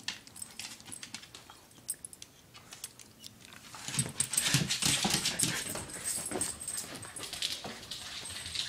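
Miniature schnauzer whimpering and whining in excitement at the prospect of a walk, getting louder and busier about halfway through, mixed with small clicks and rustling.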